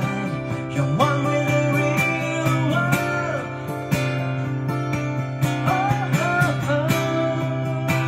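A man singing live to his own strummed acoustic guitar, with a few long held notes over a steady strum.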